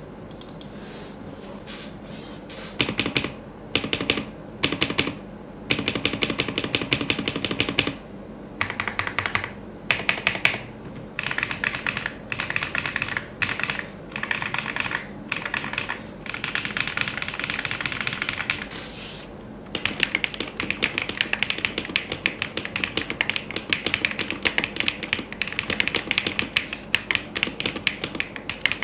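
Feker IK105 full-size mechanical keyboard being typed on: key switches clicking and clacking in short runs with brief pauses, then in unbroken fast typing through the last third.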